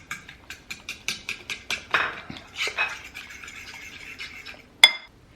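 A utensil beating eggs and spices in a bowl. It makes a run of quick clicks against the bowl, then a steadier scraping stir, and ends with one sharp, ringing clink on the bowl near the end.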